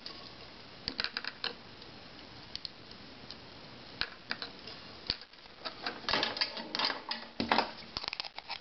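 Scattered small clicks and taps as a soldering iron and solder wire are worked against resistor leads on a circuit board, followed about six seconds in by a denser clatter and rustle as the board is handled and lifted.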